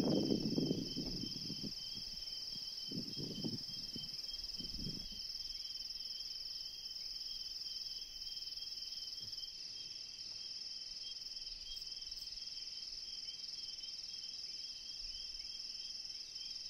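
Crickets shrilling steadily at two high pitches in the dusk savanna. A few low rumbles come in the first five seconds.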